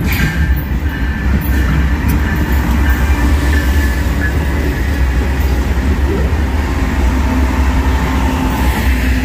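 Norfolk Southern freight train rolling past with a steady heavy rumble from its cars, thin high wheel squeal that comes and goes, and a few sharp clicks in the first couple of seconds.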